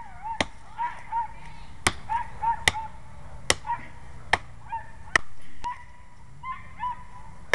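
Sharp blows of an M48 tomahawk's blade biting into a small tree trunk, roughly one a second. A short, honk-like high tone repeats between the strikes.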